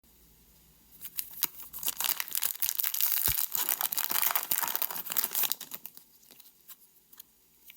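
Foil booster pack of Pokémon trading cards being torn open, a dense crinkly tearing from about a second in until about five and a half seconds, followed by a few light rustles and clicks as the wrapper and cards are handled.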